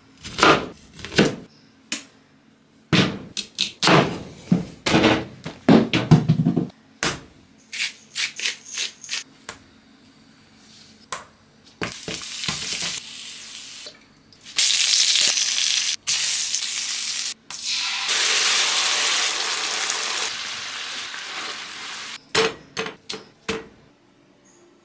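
Kitchen sounds: a chef's knife knocks repeatedly through a lemon onto a wooden cutting board, followed by smaller clicks. Then food sizzles loudly in a frying pan for about ten seconds, starting as sweet potato rounds go in, with a few knocks near the end.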